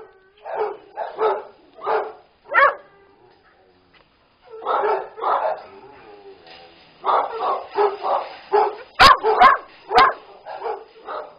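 Shelter dogs barking at a wire fence in bursts: a few barks about a second apart, a pause, then faster barking in the second half. A couple of sharp knocks come near the end.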